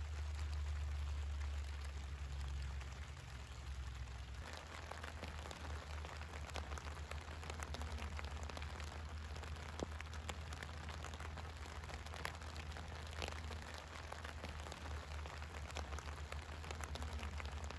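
Steady rain falling on a Coleman tent's rain fly, with many individual drops striking close by as sharp ticks, over a low steady rumble that is strongest in the first few seconds.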